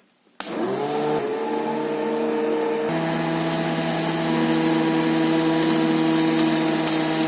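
Small DC motor of a homemade cardboard vacuum cleaner switched on with a click, spinning up within about half a second to a steady whine. The pitch shifts slightly about three seconds in, then it runs on evenly.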